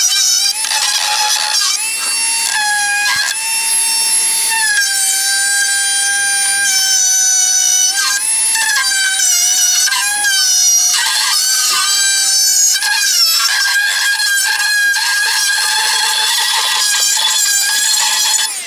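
Cordless power tool motor whining continuously, its pitch holding steady for a second or two and then sliding up or down as the trigger and load change.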